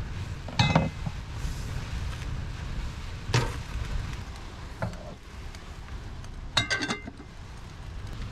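Metal clinks and clanks of a saucepan being moved on a gas hob's steel grate and its metal lid being put on: four sharp knocks spread over several seconds, the last a short ringing rattle, over a steady low rumble.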